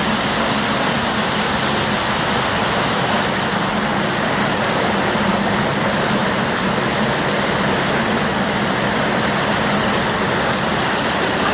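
Underground cave stream water rushing in a steady, even roar.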